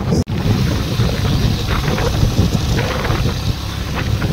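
Wind buffeting and rushing over the phone's microphone while riding a moving motorcycle, over a low road and engine rumble. The sound cuts out for an instant about a quarter second in.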